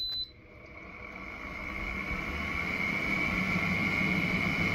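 Frigidaire 5000 BTU window air conditioner beeping once as it is switched on, then its fan spinning up, growing louder over the first couple of seconds into a steady humming whir with a high whine. Only the fan is running; the compressor has not yet kicked in.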